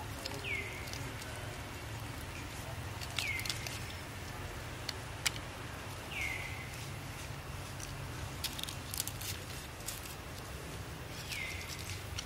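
A bird calling a short downward-sliding whistle four times, a few seconds apart, with a few soft clicks and a steady low background hum.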